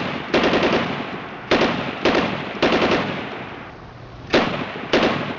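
Five short bursts of rapid automatic gunfire, each starting sharply and trailing off, spaced about a second apart.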